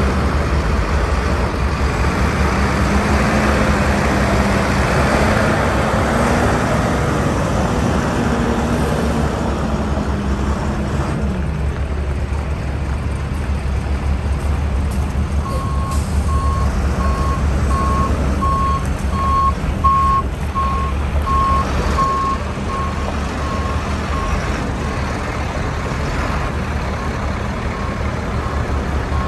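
Diesel truck engine idling steadily with a low rumble. Another engine note rises and falls during the first ten seconds or so. From about halfway through, a backup alarm beeps at an even pace.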